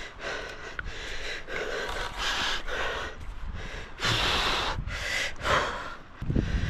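A man breathing hard: a series of heavy, gasping breaths close to the microphone, about one a second, while fighting a big fish. A low rumble comes in near the end.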